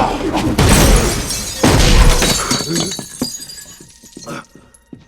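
Heavy crashes with glass shattering, three loud hits in the first two seconds, then debris and shards clattering and settling as the sound fades away.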